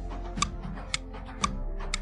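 Clock-like ticking sound effect of a countdown timer, about two ticks a second, over steady background music.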